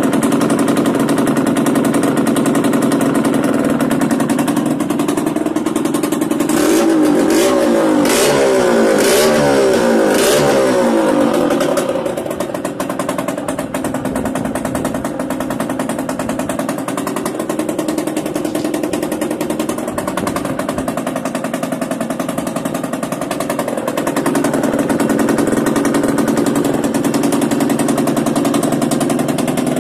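Yamaha DT125R two-stroke single-cylinder engine with a Big One expansion-chamber exhaust, running on a newly fitted unrestricted CDI. It is revved up and down several times, with a few sharp cracks, about a quarter of the way in, then settles back to a steady idle.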